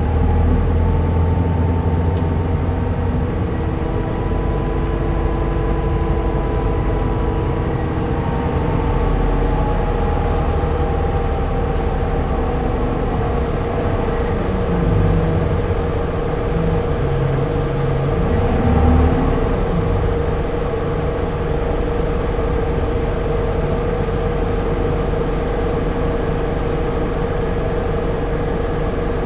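Running sound heard aboard a Keio city route bus: the diesel engine and drivetrain under way, with a steady whine throughout and the engine note rising and then falling over the first dozen seconds as the bus speeds up and eases off.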